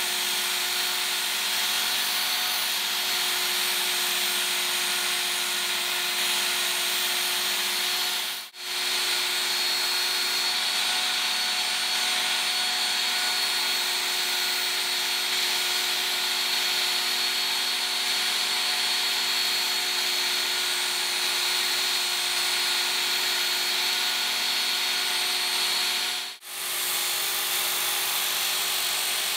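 Work Sharp electric belt knife sharpener running with a steady motor whine and belt hiss, its abrasive belt grinding steel off a kitchen knife blade to reshape it. The sound drops out for a split second twice, about eight seconds in and about three seconds before the end.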